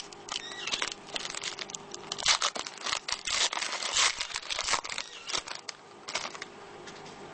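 A trading-card pack's wrapper crinkling and being torn open, in irregular bursts that are busiest in the middle and thin out near the end.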